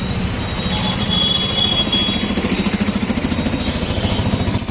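Small vehicle engine idling close by with a rapid, even putter, over street traffic noise.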